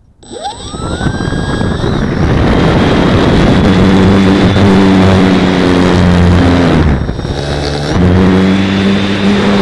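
Electric motor and propeller of a model aircraft, heard from on board. The motor spools up with a steeply rising whine, then runs at high throttle for the takeoff and climb with loud propeller and wind rush. The power drops briefly about seven seconds in, then comes back up.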